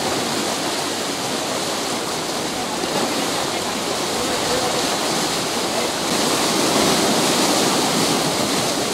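Canal water rushing through a partly opened sluice gate: a steady, churning rush that grows a little louder about six seconds in.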